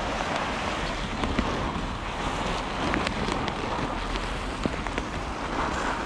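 Plastic carrier bag rustling and crinkling as it is shaken out to pour nuts onto the grass, with wind on the microphone.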